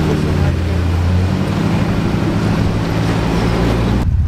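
Off-road 4x4's engine running under low-speed rock-crawling load. The revs drop about half a second in and then hold steady, and the sound changes abruptly near the end.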